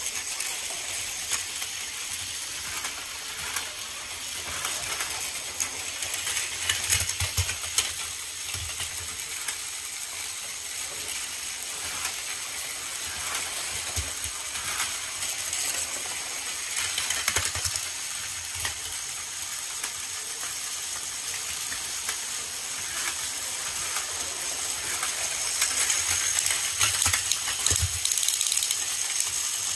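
Several battery-powered Plarail toy trains running together on plastic track: a steady whirring and clattering of small motors and wheels, with sharp plastic clacks as trains collide and derail. The clatter grows louder near the end.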